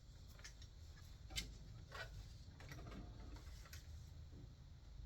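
Faint, irregular light clicks and taps from handling a printer, over quiet room tone.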